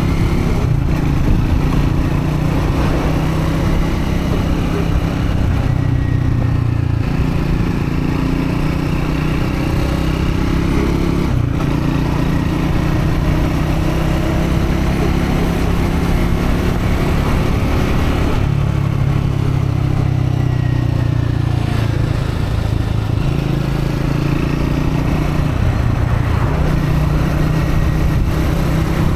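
Triumph Scrambler 400X's single-cylinder engine running as the bike is ridden at gentle break-in revs, its note holding steady for long stretches and shifting in pitch a few times with throttle and gear changes.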